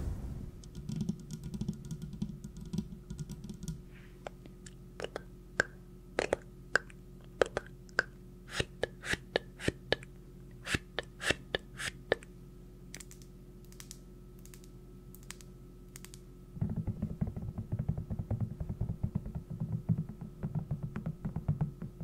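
Sharp, irregular clicks and taps, several a second, over a faint steady hum. A soft low rushing noise runs in the first few seconds and starts again near the end.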